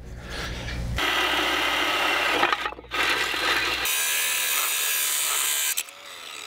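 Cordless angle grinder with a cut-off disc cutting into a metal motor shaft. It runs steadily in two stretches, with a brief break near the middle.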